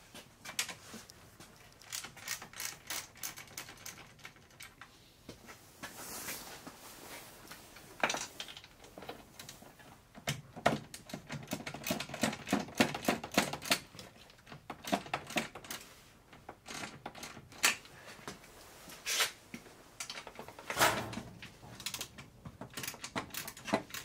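Ratchet wrench with a 10 mm socket clicking in quick runs, backing out the bolts that hold the radiator to the fan shroud, with scattered sharp clicks and knocks of the tool against metal between the runs.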